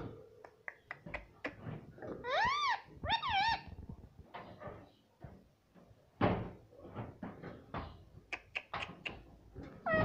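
Indian ringneck parakeet tapping and pecking its beak against a plastic box, making many sharp clicks and knocks, with two short calls, each rising then falling in pitch, about two and three seconds in.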